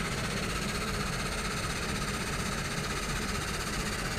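Aircraft engines running steadily: an even hiss with a high whine over a low rumble.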